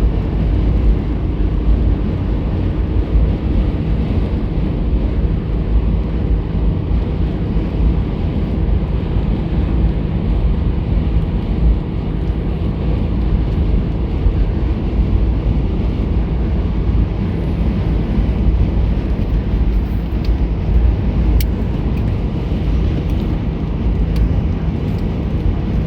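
Steady low rumble of a vehicle on the move, with a faint even engine hum under it.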